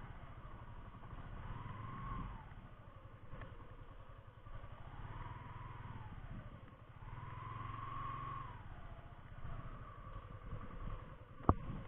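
Motorcycle engine running on a slow ride, its note rising and falling again and again with the throttle. A single sharp click sounds near the end.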